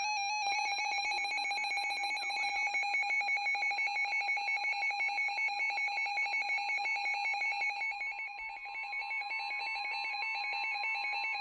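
Weather radio's built-in electronic alert alarm sounding for a newly received warning: a loud, rapidly pulsing tone like a phone ringer, starting about half a second in. A fainter steady tone joins about eight seconds in, the broadcast's warning alarm tone.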